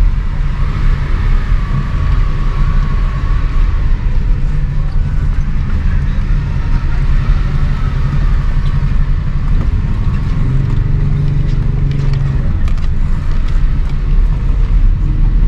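Car engine and road noise, a steady low rumble.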